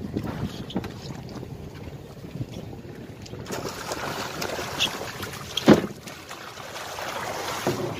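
Hooked swordfish thrashing at the surface beside the boat: water splashing and churning from about three and a half seconds in, with a sharp knock in the middle of the splashing as the loudest sound.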